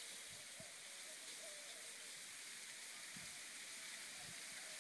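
Faint steady outdoor hiss, with a few soft low taps.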